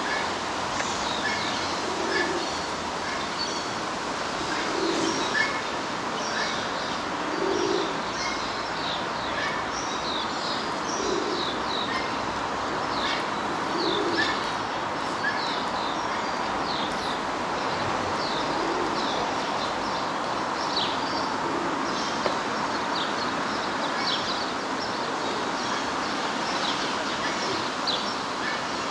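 Small birds chirping busily, with a pigeon cooing every few seconds, over a steady background hiss of outdoor noise.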